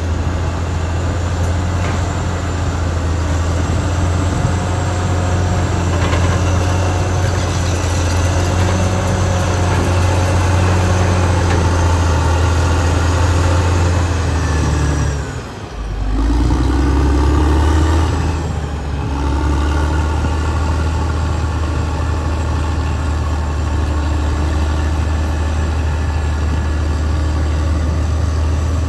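Caterpillar D6R XL bulldozer's diesel engine running steadily. About halfway through, its note dips briefly and then picks up again.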